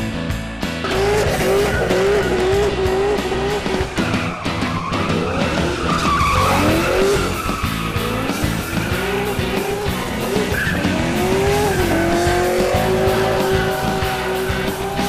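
Car engine revving hard and wavering in pitch while the tyres squeal and skid, as in drifting, over background rock music.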